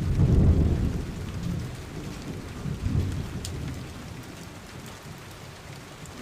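Heavy rain falling, with a low rumble of thunder that peaks about half a second in and rolls away over the following seconds.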